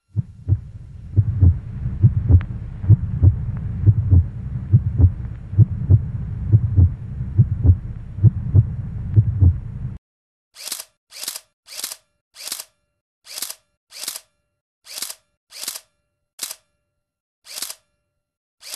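Edited sound effects: a heartbeat, deep double thumps a little more than once a second over a low hum, which cuts off abruptly about ten seconds in. It is followed by a string of camera-shutter clicks, about a dozen, each half a second to a second apart.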